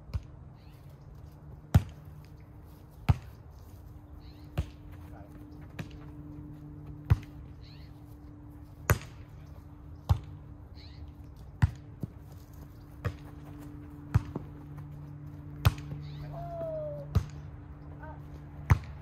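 Volleyball struck by players' hands and forearms in a long rally: sharp slaps about every second and a half, fourteen or so in all. A steady low hum runs underneath.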